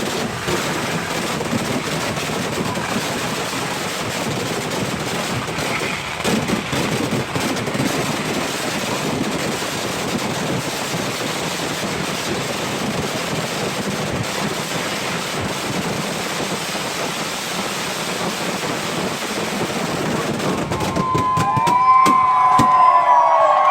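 A festival fireworks barrage: a dense, continuous volley of firecracker explosions that merge into one long crackle. Near the end it gives way to a crowd cheering and whistling.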